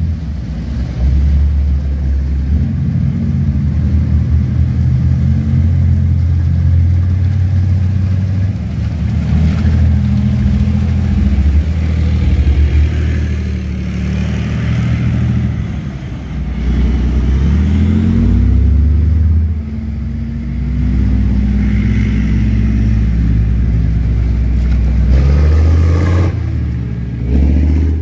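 Diesel engines of heavy tracked armoured vehicles, Leopard battle tanks and a Marder infantry fighting vehicle, running loud and low as they drive through mud. The engine pitch rises and falls several times as they rev.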